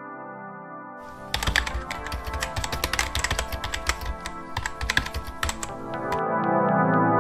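Rapid typing on a laptop keyboard, a dense run of key clicks that starts about a second in and stops about six seconds in, over electronic keyboard music that grows louder once the typing stops.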